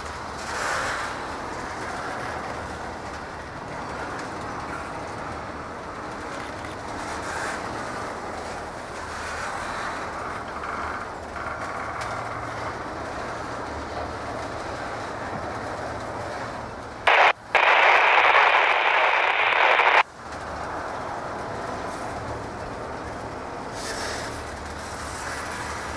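Norfolk Southern freight train rolling past with steady wheel and car noise. About seventeen seconds in, a railroad scanner radio breaks in with a loud burst of static that cuts off abruptly about three seconds later.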